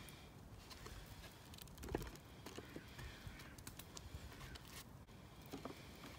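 A few light knocks and taps of a raw tomahawk steak and a seasoning shaker being handled on a wooden cutting board as the steak is seasoned and turned over, the clearest knock about two seconds in.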